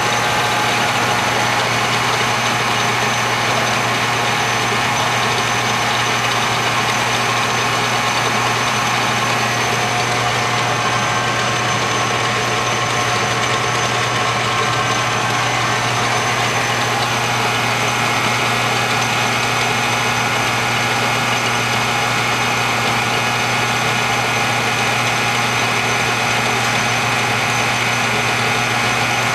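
Hardinge HLV-H toolroom lathe running under power: a steady motor and gear-drive hum with a high whine, one tone of which climbs in pitch about halfway through and then holds.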